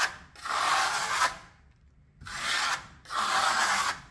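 Steel trowel spreading a thin coat of decorative plaster across a panel: about three strokes, each roughly a second long, with short gaps between.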